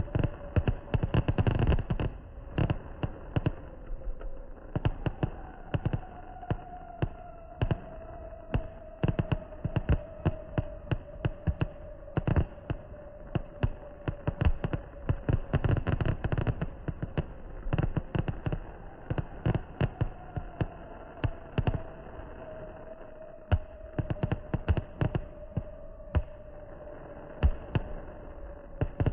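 Fireworks display: an irregular, fast run of bangs and pops from bursting shells, often several a second, with no pause.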